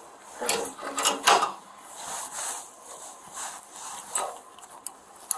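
Metal handcuff being closed around a wrist and clicked onto a bench rail: sharp ratcheting clicks and rattles, a burst about a second in and a few more near the end.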